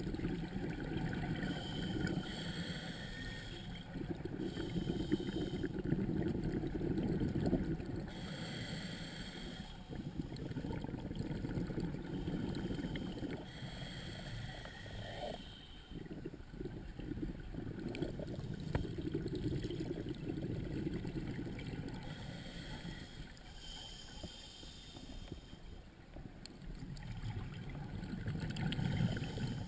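Scuba diver breathing through a regulator underwater: a short hiss on each inhale, then a longer low bubbling rush of exhaled bubbles, repeating every several seconds.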